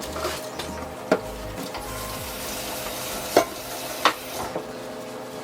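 Paper towel rubbing and wiping over refrigerator surfaces, a steady scrubbing hiss, with three sharp knocks of items or shelves being handled, the loudest a little past halfway.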